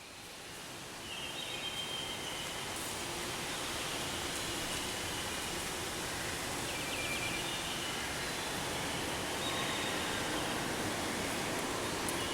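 Steady outdoor ambient rushing noise that fades in over the first second, with brief high chirps every two to three seconds.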